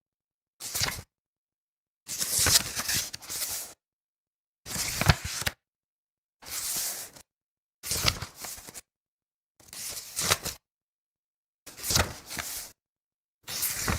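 Paper pages being turned one after another, about eight turns, each a short rustling swish with complete silence between them.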